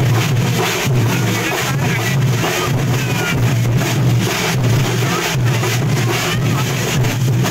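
A drum ensemble playing loudly in a steady rhythm, with a heavy low throbbing beat under rapid strikes, over crowd chatter.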